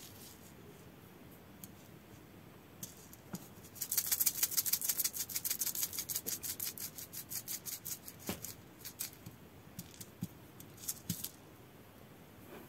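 Packaging rattling and crinkling in the hands as purchases are put away: a rapid run of crisp clicks, about ten a second, starting a few seconds in and fading out over about four seconds, then a few scattered clicks.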